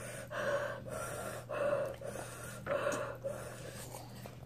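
A person puffing hard breaths through pursed lips, three times about a second apart, trying to cool a mouth burning from very hot chicken wings.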